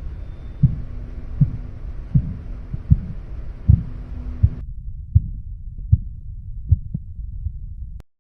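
Korotkoff sounds heard through a stethoscope: regular low thumps of the pulse, about 80 a minute, growing somewhat fainter in the second half. The background hiss drops out about halfway, and the audio cuts off with a click near the end.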